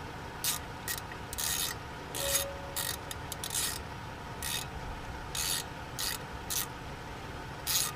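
Hand tool with a T30 Torx bit working the small brake-rotor retaining screw loose: about a dozen short rasping strokes at irregular intervals, like a ratchet being worked back and forth.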